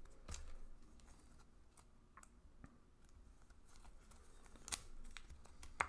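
Faint scattered clicks and taps of baseball cards being handled and sorted by hand, with two sharper clicks near the end.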